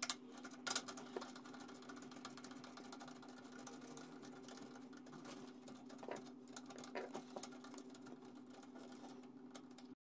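A few faint clicks and taps of small screws and a clear plastic terminal cover being fitted to the back of a power inverter, over a steady hum.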